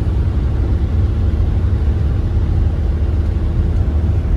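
Steady low rumble of road and engine noise inside a moving vehicle.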